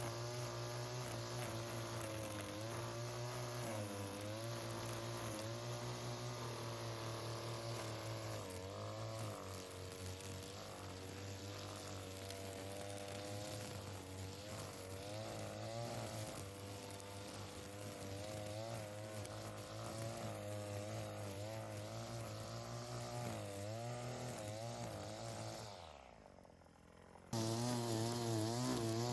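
Small engine of lawn-care equipment running, its pitch wavering slightly as the load changes. It cuts out for about a second near the end, then resumes.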